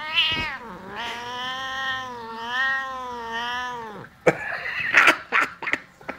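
Angry tabby cat yowling: a short cry that rises and falls, then a long yowl with a wavering pitch lasting about three seconds. After that come a string of short, sharp noises.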